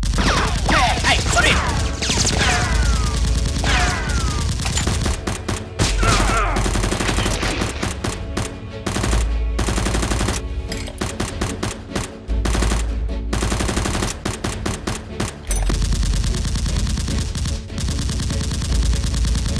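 Rapid automatic gunfire sound effects, shot after shot, over a background music track with a deep bass. In the first few seconds there are several falling whistles.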